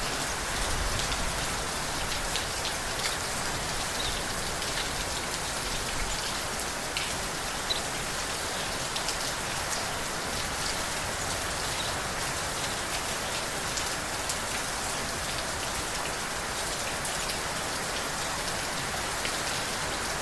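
Steady rain falling, an even hiss with many small, separate drop ticks scattered through it.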